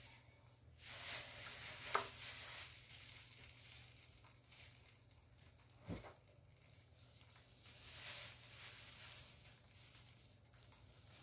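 Egg-battered pollack fillets sizzling in oil on a griddle pan, the sizzle swelling a few times as more fillets are laid in. A light click comes about two seconds in and a short knock about six seconds in.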